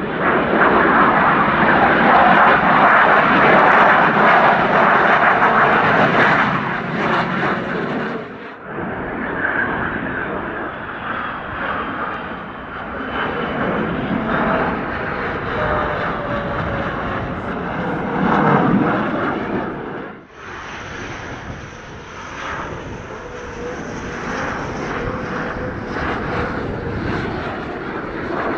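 Military fighter jets flying past in three separate passes cut together. First an F-22 Raptor's engines, the loudest. Then an F/A-18 on landing approach, with a whine falling in pitch as it passes. Then an F-15 on approach, a little quieter.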